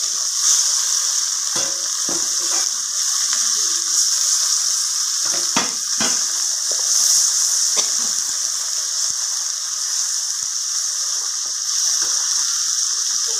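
Ghee tadka of fried onion and chilli sizzling steadily in a metal pot as cooked mustard greens (sarson ka saag) are stirred into it with a wooden spoon. The spoon knocks and scrapes against the pot a few times.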